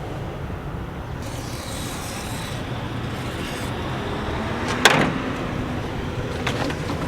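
Steady low rumble of a vehicle, with one sharp knock about five seconds in and a couple of lighter clicks after it.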